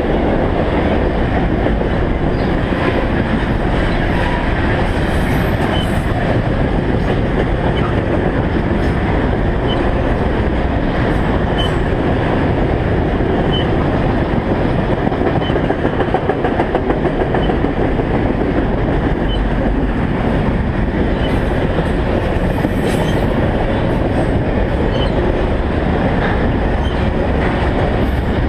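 Freight train of autorack cars rolling past, its wheels on the rails making a steady, loud noise with faint high clicks.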